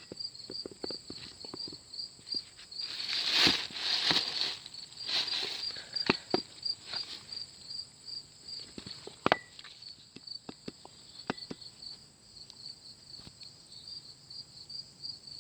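Insects chirping in a steady, evenly pulsing high rhythm, with scattered knocks and clicks over it, the loudest a cluster about three to four seconds in and a sharp knock about nine seconds in.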